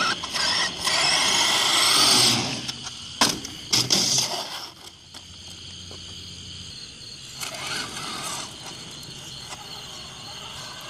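Traxxas Summit RC truck's electric motor whining up in pitch as it accelerates hard across concrete, then a few sharp knocks about three to four seconds in as the truck tips over. Quieter afterwards, with a shorter burst of motor and tyre noise near eight seconds and a steady high insect chirping behind.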